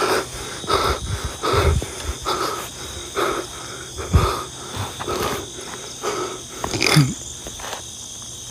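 A person breathing hard and fast, short puffs about two a second, while moving quickly on foot over the forest floor, with a few low footfall thumps.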